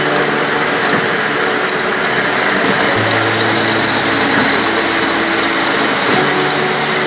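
Steady running noise of a plywood veneer peeling line (spindleless rotary lathe and its roller conveyor carrying off the veneer sheet): a dense, loud hiss with a low machine hum, a deeper hum coming in about three seconds in.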